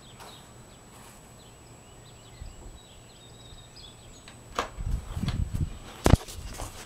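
Quiet outdoor background, then footsteps and handling bumps on a handheld camcorder from about four and a half seconds in, with one sharp knock about six seconds in.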